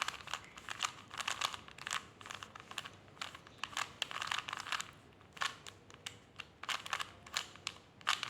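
Rubik's Cube being turned quickly by hand: a run of irregular plastic clicks and rattles as the layers are twisted.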